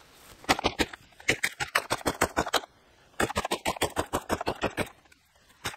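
Stihl MS 180 two-stroke chainsaw being pull-started on choke: two long runs of rapid clatter as the recoil starter cranks the engine over, and it does not catch.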